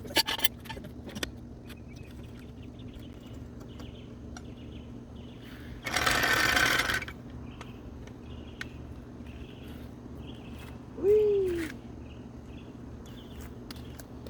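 A power wrench runs in one burst of about a second, around six seconds in, during a wheel change. Scattered clicks of tools and wheel parts surround it, and a short loud squeak that rises and falls in pitch comes a little after eleven seconds.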